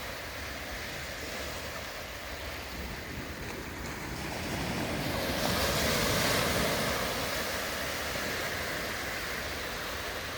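Sea waves breaking and washing up the shore, one wave surging louder about halfway through, with some wind on the microphone.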